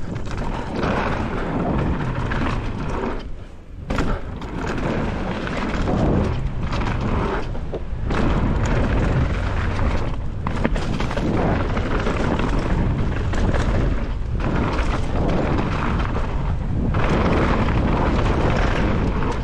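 Wind buffeting the microphone and the rattle of a Specialized Status downhill mountain bike riding fast down a rough, technical trail, a steady rushing noise with a heavy low rumble that dips briefly a few times.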